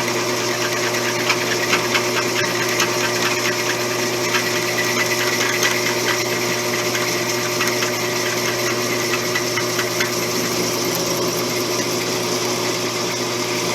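A small electric shop motor running steadily with a constant hum and faint irregular ticking.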